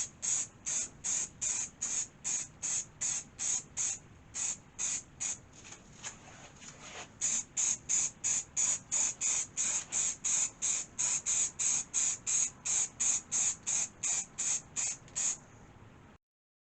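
Aerosol spray paint can hissing in short, evenly spaced bursts, about two and a half a second, with a brief lull near the middle.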